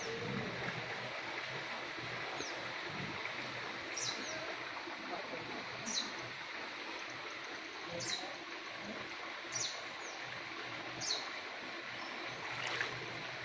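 Steady rush of flowing stream water, with a bird repeating a short, high call that drops in pitch roughly every one and a half to two seconds.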